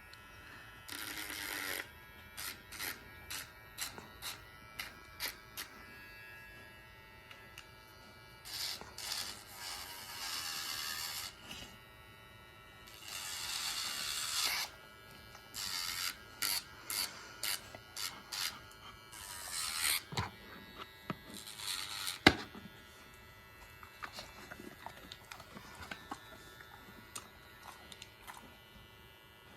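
Electric dog nail grinder running steadily, with short, irregular rasping bursts each time the spinning grinding wheel is touched to the dog's nails. One sharp knock about 22 seconds in.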